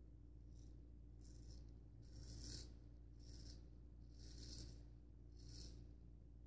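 Faint scraping of a Gold Dollar 66 straight razor cutting lathered beard stubble, about six short strokes roughly a second apart, over a low steady room hum.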